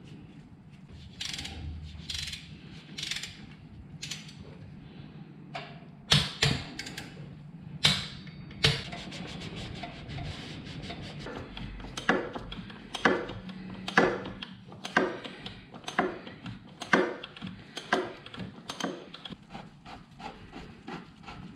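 Hand tools and metal parts being handled on a motorcycle: scattered sharp clicks and knocks, then a regular click about once a second, eight or so times.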